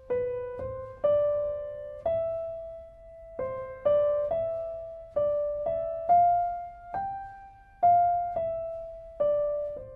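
Background music: a slow piano melody, one note at a time, each struck and left to fade.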